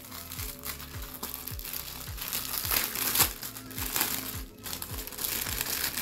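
Clear plastic packaging bag crinkling as it is handled, over background music with a steady beat.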